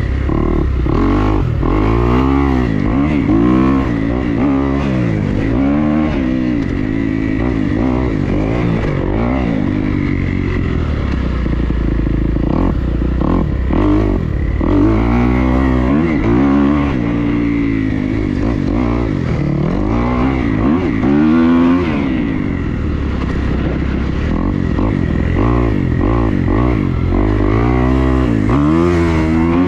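Dirt bike engine under a rider's throttle, the engine note sweeping up and falling again and again as the throttle is opened and rolled off.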